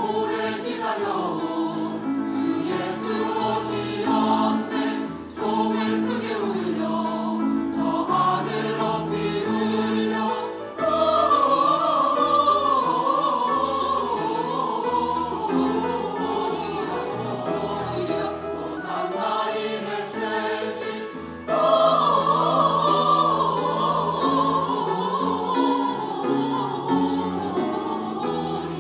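Choir singing a choral piece with piano accompaniment, swelling louder about 11 seconds in and again about 22 seconds in.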